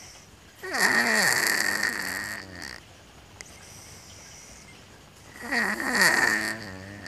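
Pet cat snoring in its sleep: two long snores about five seconds apart, each lasting about two seconds, with a pitch that dips and then rises and a high whistling note running through it.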